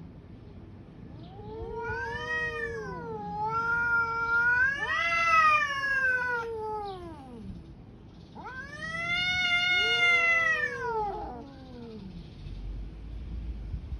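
Two domestic cats in a standoff, a grey tabby and an orange tabby, caterwauling. A long wavering yowl rises and falls for about six seconds, then after a short pause a second yowl lasts about three seconds. It is the threat yowling that comes before a cat fight.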